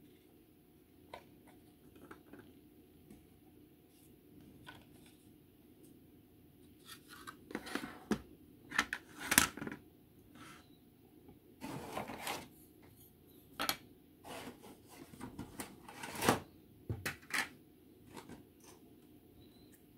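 Grey plastic model-kit parts being handled and laid down on a cutting mat: scattered light clicks, taps and rubbing of the plastic pieces, coming in uneven bursts from about a third of the way in.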